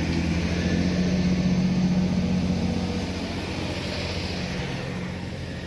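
Class 165 diesel multiple unit pulling out, its underfloor diesel engines giving a steady drone with a low tone. The drone is loudest about two seconds in and then slowly fades as the train draws away.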